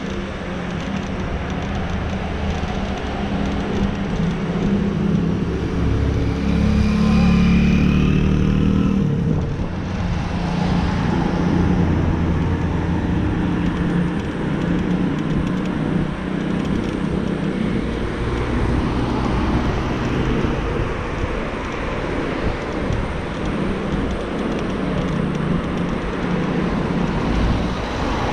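Steady low rumble of road and wind noise from riding a Xiaomi Mi Pro 2 electric scooter, with car traffic passing alongside. The noise swells for a few seconds about six seconds in.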